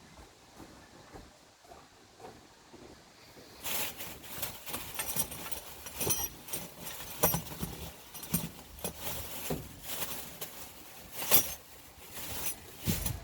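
Metal tools being rummaged through and handled: a quiet start, then from about four seconds in a busy run of clinks, knocks and rattles with some rustling, the loudest knock near the end.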